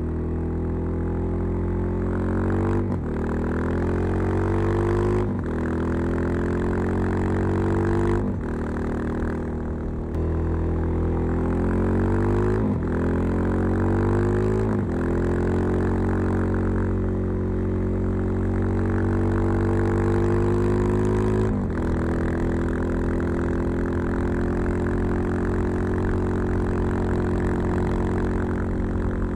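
Suzuki DR-Z 400 Supermoto single-cylinder four-stroke with a Keihin FCR 39 carburettor and LeoVince V3 slip-on (dB-killer fitted) under way. The revs climb and drop at a string of gear changes through the first half. The engine then holds a steady note, with one more change in pitch about two-thirds of the way in.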